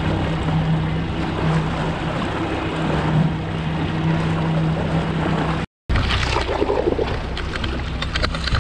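Boat motor running at a steady trolling speed, a constant low hum mixed with wind and water noise. The sound cuts out for a moment about two-thirds of the way through.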